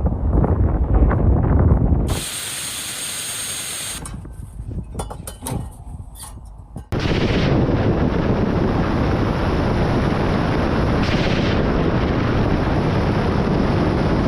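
Weapons fire from attack helicopters in several cut clips: a heavy low rumble, a short hissing stretch about two seconds in, a run of sharp cracks of firing between about four and seven seconds, then a steady loud noise that lasts to the end.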